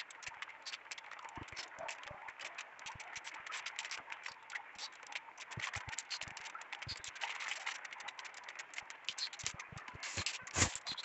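Light rain: many small drops tapping irregularly on papaya leaves and fruit, with one louder knock near the end.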